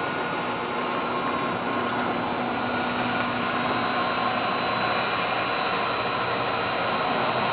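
Canedy-Otto drill press running at 60 Hz on its 3 horsepower three-phase motor, fed by a Huanyang variable frequency drive: a steady running hum of the motor and belt drive, with a steady high-pitched whine over it.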